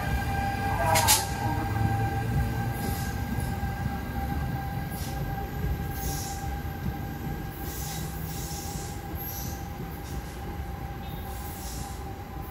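NJ Transit ALP-46A electric locomotive and Comet V coaches rolling away, a low rumble under a steady high whine that slowly fades as the train recedes. There is one sharp click about a second in.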